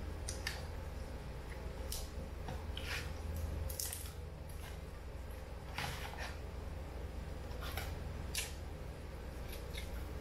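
Cooked lobster being picked apart by hand and eaten: a scattered series of short, wet squishes and crackling snaps of shell and meat, with chewing, over a steady low hum.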